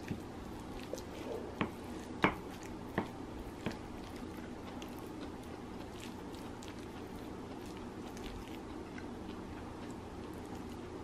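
Wooden spoon stirring curry and rice on a ceramic plate: several sharp clacks of the spoon against the plate in the first few seconds, the loudest about two seconds in, then only faint light clicks of mixing over a low steady hum.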